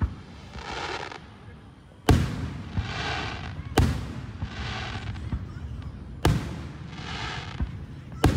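Aerial firework shells bursting overhead: five sharp, loud booms at uneven intervals of about one and a half to two and a half seconds.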